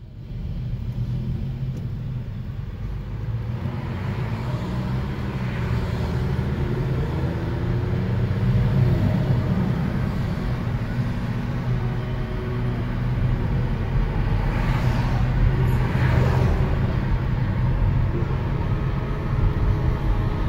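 Car engine and tyre rumble heard from inside the cabin while driving, a steady low drone with the engine note rising and falling as the car speeds up and slows.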